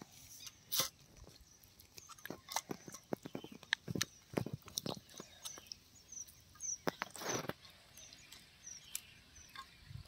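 Hands squishing and slapping thick, wet masala marinade paste in a clay pot, a run of irregular wet clicks and squelches with a couple of longer smears.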